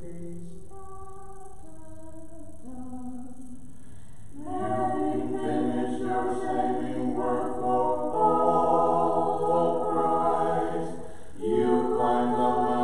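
Orthodox church choir singing a Vespers hymn a cappella. A single voice chants alone at first, then the full choir comes in louder about four and a half seconds in, holding chords in several parts, with a brief break near the end before it goes on.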